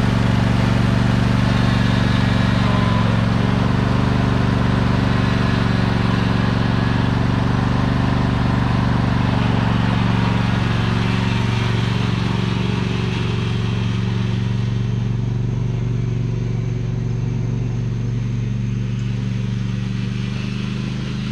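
John Deere D170 riding mower's engine running steadily, growing somewhat quieter in the second half.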